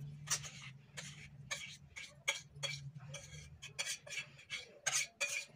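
Steel spoon scraping and knocking against a stainless-steel bowl as a thick mixture is scooped out: a quick run of clinks, about three a second.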